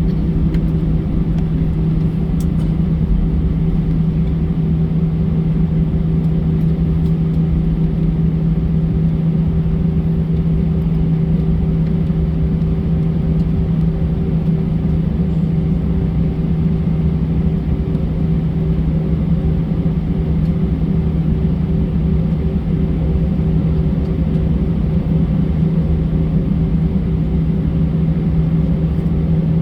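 Steady drone of an Airbus A320 cabin with its jet engines running: a constant low hum over rumbling noise that does not change in pitch or level.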